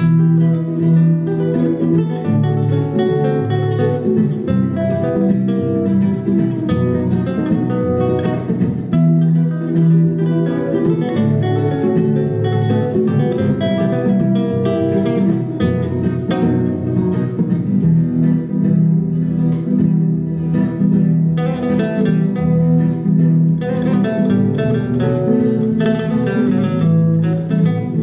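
Two acoustic guitars playing a piece together in a steady stream of plucked notes and chords: a nylon-string classical guitar and a second acoustic guitar fed through a small amplifier.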